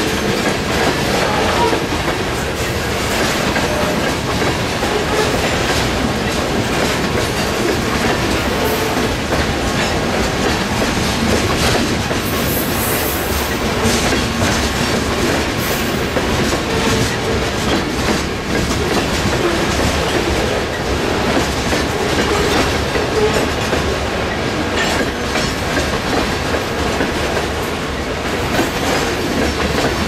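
Covered grain hopper cars of a freight train rolling past, a steady noise of wheels and cars with the clickety-clack of wheels over the rail joints.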